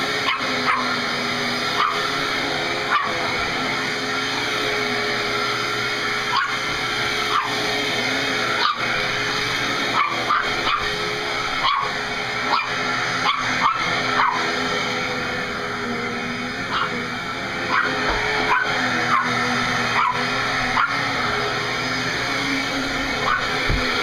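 A dog barking and yipping over and over at a running vacuum cleaner, about one sharp bark a second with a few-second lull past the middle. The vacuum's motor hums steadily underneath.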